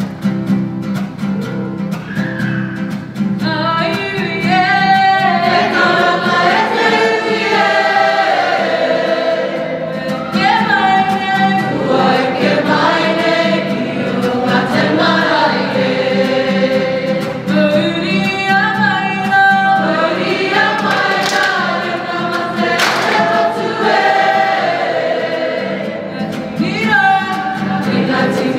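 A group of school children singing together in chorus, accompanied by a strummed guitar. The full singing comes in about three seconds in and carries on steadily.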